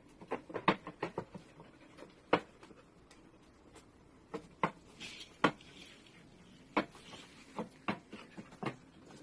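Sharp, short taps and clicks at irregular intervals: a quick cluster in the first second or so, then single ones every second or so.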